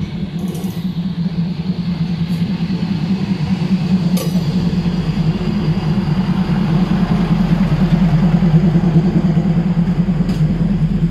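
A diesel train's engine running with a steady low drone, growing louder as the train draws near, with a few brief clicks.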